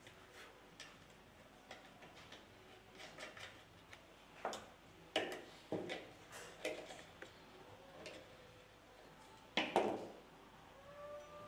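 Small clicks and knocks of metal cannon-carriage parts being handled and fitted together by hand, irregular, with louder knocks about five seconds in and again near ten seconds.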